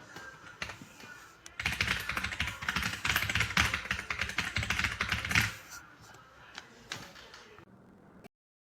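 Typing on an AJAZZ AK820 75% mechanical keyboard: a few scattered keystrokes, then a fast, dense run of keystrokes for about four seconds, then a few slower keystrokes before it stops.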